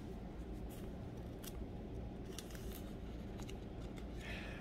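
Thin Bible-paper pages being leafed through by hand: a few light ticks, then a brief papery swish of a page turning near the end.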